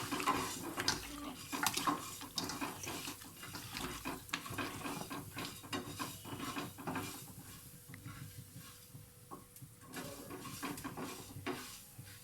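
Kitchen utensil clinking and scraping against a bowl in quick, irregular strokes while chicken is being mixed, busy at first, easing off for a few seconds past the middle, then picking up again.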